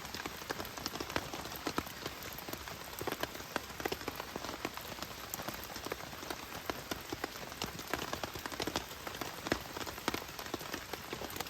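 Steady rain falling, with many scattered sharp drop hits on a nearby surface.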